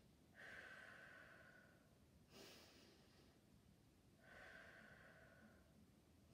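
A woman's faint, slow, deliberate breathing in a paced five-finger breathing exercise, drawing breath in through the nose and letting it out through the mouth. There are three soft breaths, the first and last each lasting over a second.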